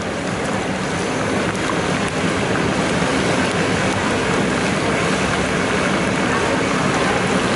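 Chopped okra deep-frying in a large iron kadai of hot oil: steady, loud sizzling and bubbling.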